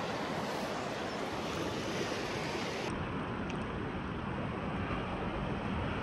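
A river running high and fast with snowmelt runoff, its water rushing in a steady, even wash. About three seconds in, the highest part of the hiss drops away.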